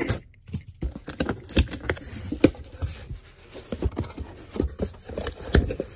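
Cardboard shipping box being opened by hand: the flaps are pulled apart and folded back, giving irregular knocks, scrapes and rustles of cardboard and of the moulded paper-pulp insert inside.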